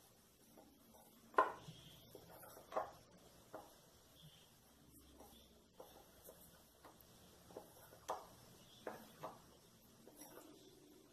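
A spatula stirring melted chocolate and cream in a ceramic bowl. It scrapes softly, with light, irregular knocks and clinks against the side of the bowl, the loudest about a second and a half in.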